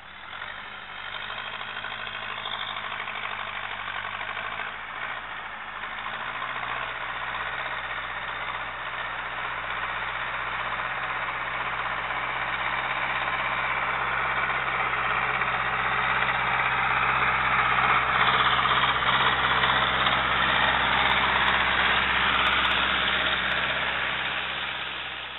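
Zetor tractor's diesel engine running steadily under load while pulling a spreader. It grows louder as the tractor approaches, is loudest as it passes close by, and fades near the end.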